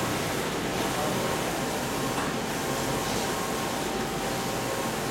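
Wide-format inkjet printer running, its print-head carriage shuttling back and forth across the media with a steady mechanical hiss that dips and swells with each pass, about every one and a half to two seconds.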